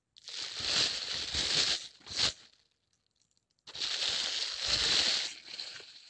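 Plastic crinkling and crumpling in two bursts of about two seconds each, with a short sharp crackle just after the first and a pause of a little over a second before the second.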